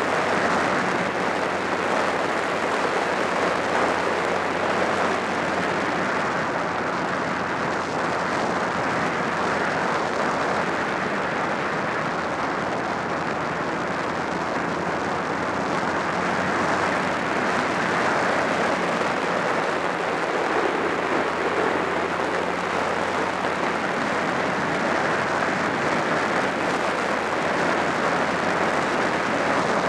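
Steady wind rush over the microphone of a camera on a moving motorcycle, with the low, even drone of a Honda Rebel 250's parallel-twin engine underneath as it rides along at a constant pace.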